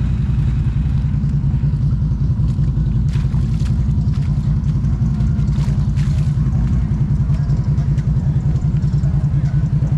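ATV engine running steadily at a constant pace, a low even rumble with a rapid pulse.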